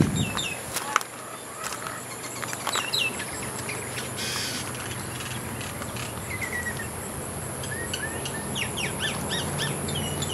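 Birds chirping in garden trees: many short, quick falling calls, busiest near the end, over a steady high insect drone. A single sharp click about a second in.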